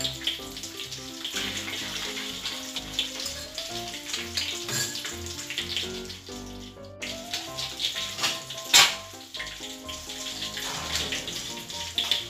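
Hot oil sizzling and crackling as halved hard-boiled eggs coated in beaten egg deep-fry in a wok, under background music with a simple melody. There is a sharp loud pop about nine seconds in.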